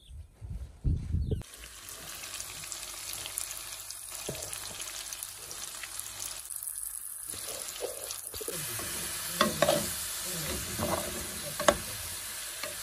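Food frying in a pan: a steady crackling sizzle with clicks and scrapes of stirring, and one sharp click near the end. A couple of low thumps come just before the sizzle starts, about a second and a half in.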